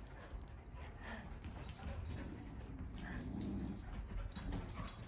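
A wire fox terrier and a black curly-coated dog play-wrestling: quiet whimpers and a low growl a little past the middle, over soft scuffling.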